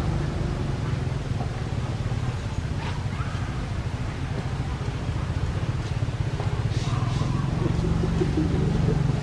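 Steady low hum of an engine running, like an idling motor vehicle.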